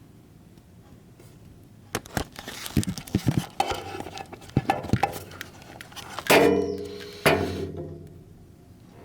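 Metal clinks and knocks from handling the blade, gauge and tools of a portable electric planer during blade setting, followed by two loud ringing metallic clanks about a second apart.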